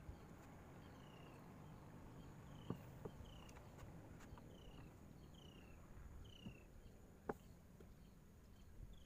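Quiet riverside ambience: a bird repeats a short, falling whistled note a little more than once a second over a thin, steady high insect drone. Two sharp knocks stand out, one about three seconds in and one near the end.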